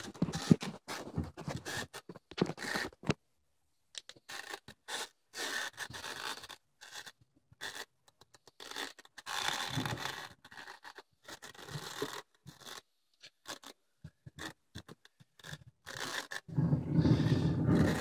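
Irregular scraping and rubbing: handling noise from an inspection camera and its scope cable being worked into a furnace heat exchanger. It turns into a denser, steadier rumble near the end.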